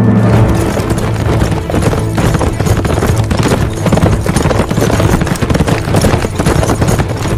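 A horse galloping, its hooves striking the dirt track in a fast, continuous stream of hoofbeats, over dramatic soundtrack music.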